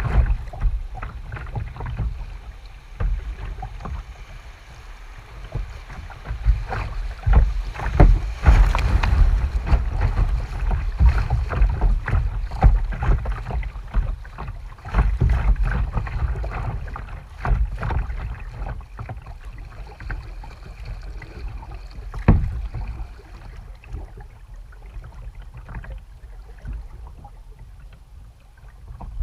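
Kayak paddling on a river: the paddle blades dip and splash, with scattered sharp knocks and clicks, over a steady low rumble. The strokes are busiest in the middle and ease off near the end.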